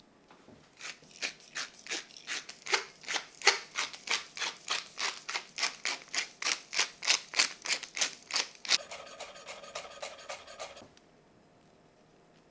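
Hand-twisted pepper mill grinding black pepper, a rapid run of crunchy grinding strokes about four a second, ending in about two seconds of steadier rasping before it stops.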